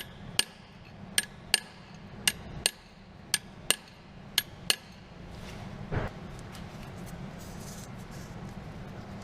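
Light hammer taps on metal, each with a short ring, about ten of them, often in pairs, tapping a new drive shaft oil seal deeper into the gearbox housing; the tapping stops a little under five seconds in, and a single duller knock follows about a second later.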